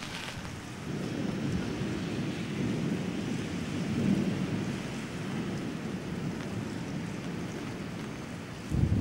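Thunder rumbling over torrential rain, swelling to its loudest about four seconds in, with a sharper, louder clap starting near the end.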